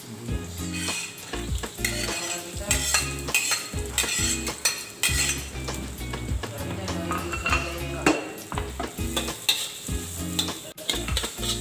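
Chopped garlic and red onion sizzling in a hot wok while a metal spatula scrapes and taps against the pan as they are stirred.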